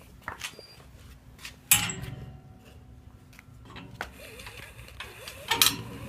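Sharp metallic clanks against an iron railing: a loud knock about two seconds in and another cluster near the end, each with a brief ring, and handling rattles in between.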